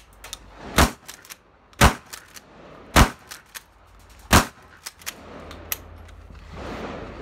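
Pump-action shotgun fired four times, about a second apart, with quieter clacks between shots as the pump is worked.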